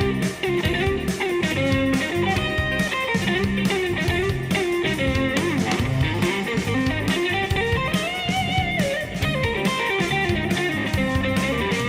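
Instrumental band music: a guitar plays a melodic line over a bass line.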